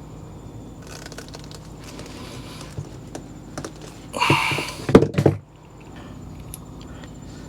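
Handling noises while reassembling a truck camper's interior: light clicks, a loud scraping rustle about four seconds in, then two sharp knocks, over a steady low hum.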